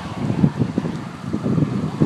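Wind buffeting the microphone: an irregular, gusty low rumble.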